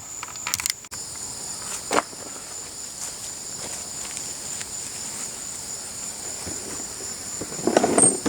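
Steady high-pitched chorus of insects, cricket-like, with a few short knocks of metal parts being handled. A loud burst of clattering comes near the end.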